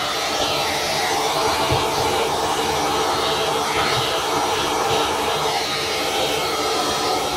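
Vacuum cleaner running steadily, its hose nozzle sucking dust off an amplifier's circuit board.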